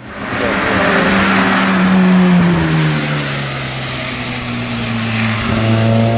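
Peugeot 106 S16 rally car's 1.6-litre 16-valve four-cylinder engine, heard from the roadside. Its note falls as the car slows into a wet hairpin, then holds steady through the turn.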